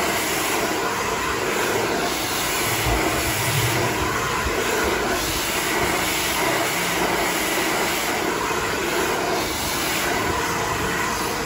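Hand-held hair dryer running steadily, a loud rush of air with a faint whine, its nozzle blowing through long hair drawn over a round brush.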